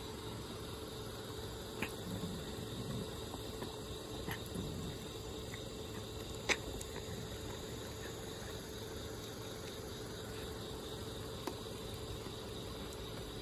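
A tortoiseshell cat eating dry kibble from a bowl: a few scattered sharp crunches of chewing, the loudest a little past the middle, over a steady background hiss and hum.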